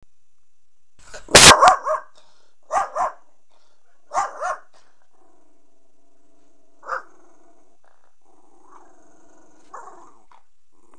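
Jack Russell terrier barking at a neighbour outside the window. A loud burst of barks comes a little over a second in, then two quick pairs of barks and a single bark near the seven-second mark. A low, steady growl rumbles between the barks and on after them.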